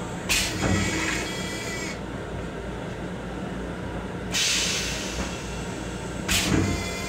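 M7 electric railcar running, heard from inside its restroom: a steady low rumble, with three short hissing bursts about a third of a second in, about four seconds in and near the end, two of them carrying a brief thin squeal.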